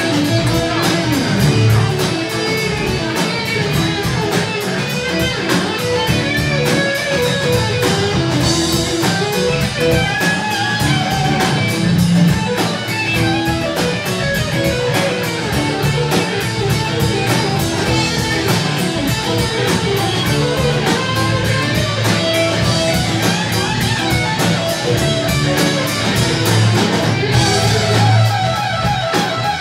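Live rock band playing an instrumental passage: electric guitar and strummed acoustic guitar over a drum kit.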